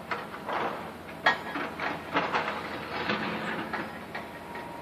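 Excavators working brick demolition rubble: irregular metal clanks and knocks, the sharpest about a second in.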